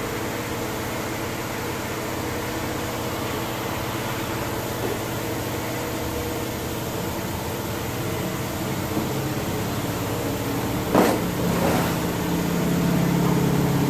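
Steady mechanical hum of repair-shop machinery, with one sharp knock about eleven seconds in; soon after, a deeper hum grows louder.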